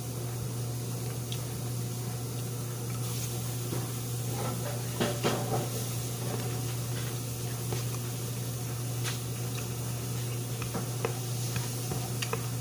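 Steady low hum with scattered light clinks and knocks of dishes and utensils being handled, a small cluster about five seconds in.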